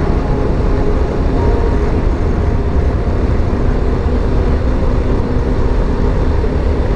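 BMW G310GS single-cylinder motorcycle being ridden at a steady pace: continuous engine drone mixed with road and wind rumble, with no change in speed.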